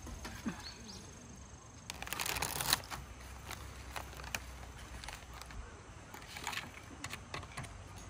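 Handling noises: a burst of rustling about two seconds in, then scattered light clicks and knocks.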